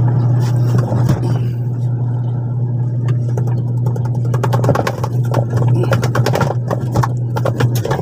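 Clean Matic washing machine's motor running with a steady hum, driving the pulsator through a newly fitted belt, with rattling and scraping clicks as a hand presses on the spinning pulsator, which keeps turning strongly against it. The new belt replaces a worn, loose, cracked one that had left the tub turning weakly under load.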